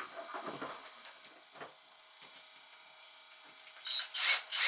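Light handling clicks and taps on a fuel gauge sender unit, then near the end a cordless drill-driver run in two short bursts on the screws of the sender's flange on a plastic diesel tank.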